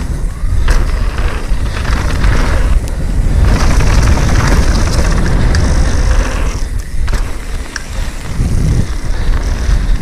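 Mountain bike descending a rough technical trail: tyres rolling over dirt and rock with the bike clattering and a few sharp knocks, under heavy wind rumble on the microphone.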